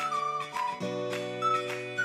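Background music: a high, short-note melody over held chords, with a steady beat. The chord changes just under a second in.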